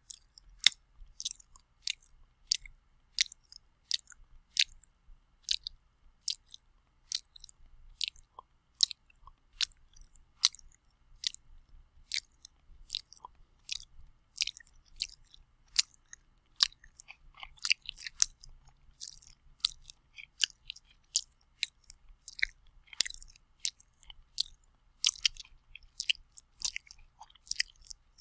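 Wet, sloppy mouth sounds of someone eating with lips smacking: a run of short sharp smacks, about one to two a second at first, coming faster and more irregular about halfway through.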